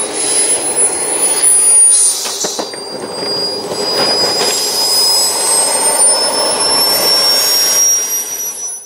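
Radio-controlled model jet's engine whining high and steady as the jet rolls on the grass after landing, the pitch creeping slowly upward; the sound cuts off abruptly at the end.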